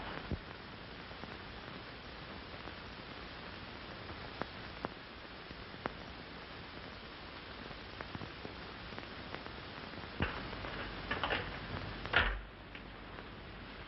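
Steady hiss with scattered faint clicks, the surface noise of an old 1930s film soundtrack. A few louder knocks come about ten to twelve seconds in, the last the loudest.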